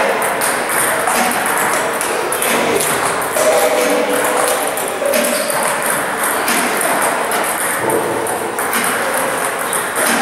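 Table tennis balls from an Amicus 3000 ball robot in a fast, continuous run of sharp clicks: launched, bouncing on the table and struck back with a paddle during a multiball drill.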